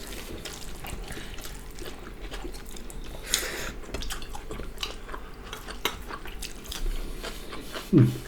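Close-up wet eating sounds: many small mouth clicks and smacks, with a short hissing slurp about three seconds in and a brief vocal sound near the end.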